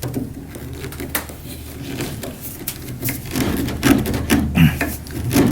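Scattered knocks, clicks and rubbing of hands working with parts at close range, busiest near the end, over a steady low hum.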